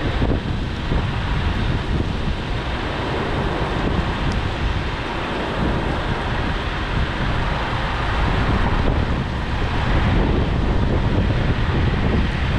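Wind buffeting the microphone over a steady, loud rushing rumble from a vehicle on the move.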